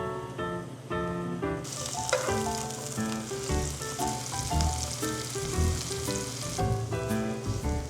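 Food sizzling in a hot oiled pan, starting suddenly about a second and a half in and cutting off near the end, over background music with a steady beat.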